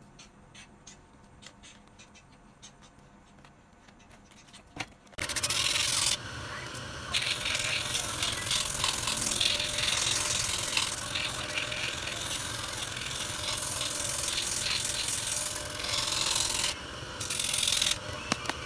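A shoe's sole edge being ground against a spinning sanding drum on a motor-driven spindle: a loud, steady rasping that starts suddenly about five seconds in, after a few faint handling clicks. It eases briefly a couple of times as the shoe is shifted against the drum, and it drops away just before the end.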